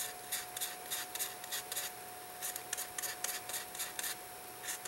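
Watchmaker's screwdriver blade scratching against a tiny steel watch part held in tweezers: short scraping strokes, about three or four a second, in two runs with a brief pause between them and one last stroke near the end.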